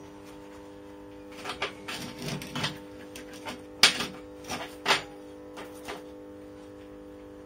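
Small steel parts knocking and clinking against a steel welding table as gloved hands pick them up and set them in place: a series of separate knocks, the two loudest about four and five seconds in, over a steady low hum.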